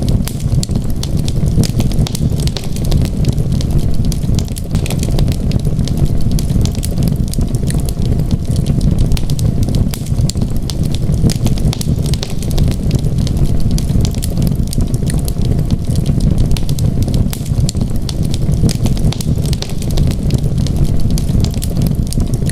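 Wood fire crackling, with frequent sharp little pops over a steady low rumble.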